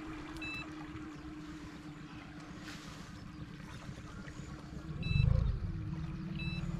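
Small outboard motor on an inflatable boat running steadily at low speed, with a brief louder surge about five seconds in. Short high electronic beeps sound three times.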